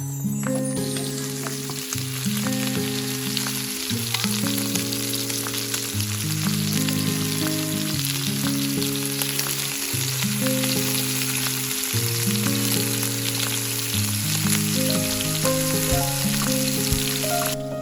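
Food sizzling steadily as it fries, over background music of slow, held low notes.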